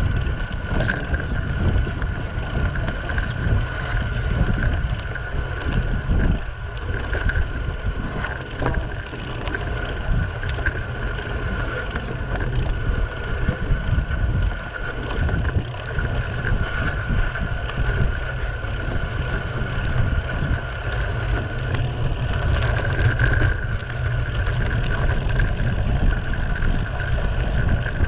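Wind buffeting the camera microphone while moving down a gravel road, with a low rumble from the ride. A steady high whine runs underneath, with a few faint clicks.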